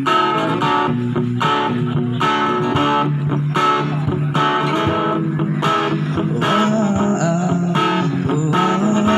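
A busker's guitar playing a song intro with a bass line, strummed in a steady rhythm.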